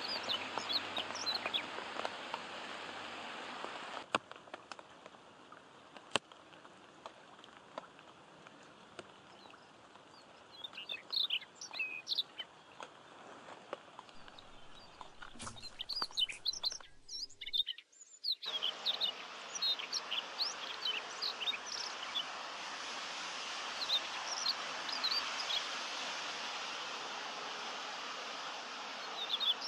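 Rain falling on a lake's surface in a steady patter-hiss, with small birds chirping repeatedly over it. The sound drops out briefly about two-thirds of the way through.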